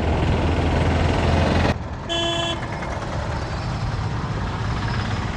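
Riding noise from a Kawasaki Z900 motorcycle in traffic: a steady low engine rumble with wind noise, which drops off abruptly a little under two seconds in. A vehicle horn gives a short toot just after.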